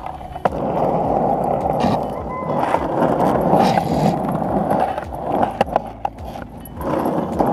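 Skateboard wheels rolling over rough asphalt: a steady rumble that eases briefly about six seconds in and then picks up again, with a few sharp clicks from bumps in the pavement.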